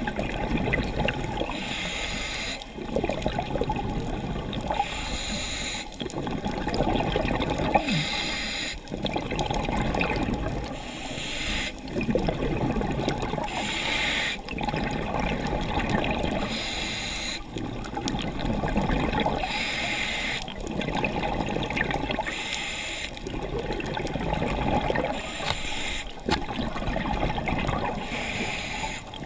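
Scuba diver breathing underwater through a regulator: a short hiss of each inhale alternates with a longer, lower gurgle of exhaled bubbles, about one breath every three seconds.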